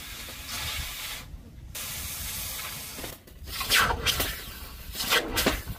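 Steel knife blade quenched and swished through a trough of water: a steady hiss with two louder splashes, about three and a half and five seconds in.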